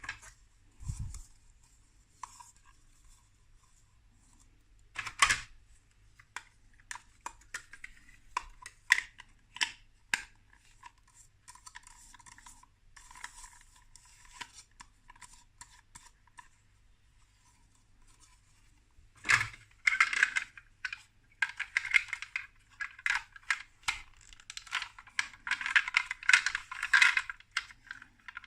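Plastic building-block pieces being handled and pressed together: scattered sharp clicks and taps, then a long stretch of rapid clicking and rattling in the last third.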